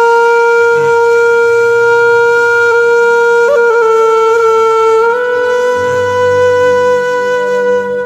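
Background music: a wind instrument holds one long note, wavering briefly about three and a half seconds in and stepping slightly higher a little later.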